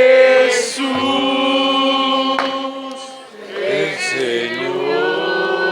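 A group of voices chanting or singing together in long held notes: one held for about two seconds, a brief break, then another sustained note.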